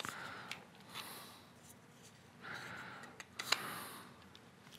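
Faint handling of small 3D-printed plastic parts as they are turned over and fitted together: light rubbing with a few small clicks, the sharpest about three and a half seconds in.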